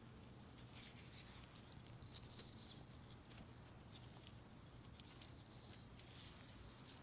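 Faint rustling and scratching of a gloved hand working garden soil, with a small click about one and a half seconds in and the plainest rustle about two seconds in.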